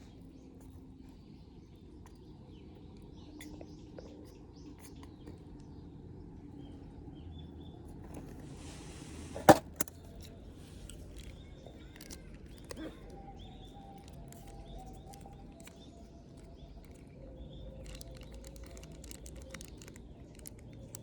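Quiet outdoor ambience with faint chirps, and one sharp click about halfway through, just after a brief hiss.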